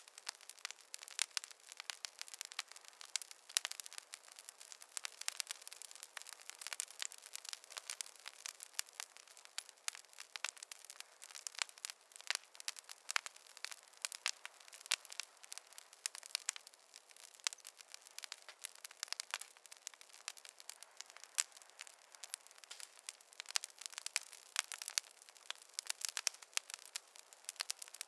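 Campfire crackling: a dense, irregular run of sharp pops and snaps over a steady hiss.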